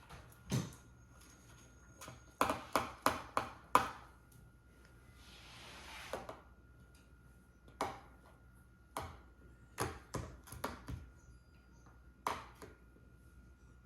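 Sharp taps and clicks of a stirring utensil against the container while slime is mixed. A quick run of five taps comes a couple of seconds in, with a soft swish a little later and scattered single taps after.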